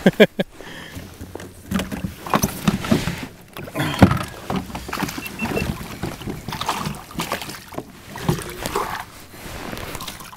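Irregular knocks, clicks and clatter on a plastic fishing kayak as a rod and gear are handled.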